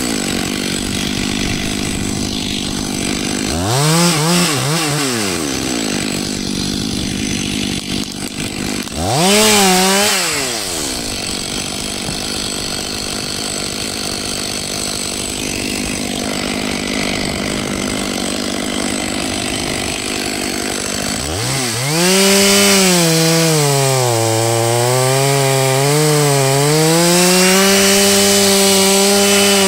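Two-stroke chainsaw running near idle, blipped to a higher pitch and back twice in the first ten seconds. Then, about two-thirds of the way in, it is held at high revs to the end, the pitch sagging and recovering.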